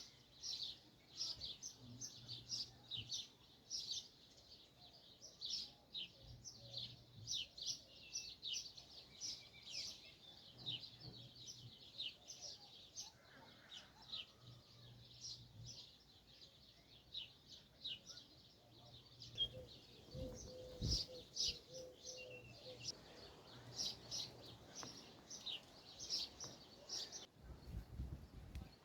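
Small birds chirping in quick, short, high calls, several a second, stopping about a second before the end.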